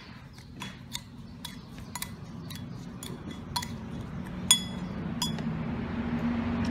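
Metal spoon clinking against a ceramic bowl while stirring chopped garlic and seasoning: about ten sharp, ringing clinks, the loudest a little past halfway.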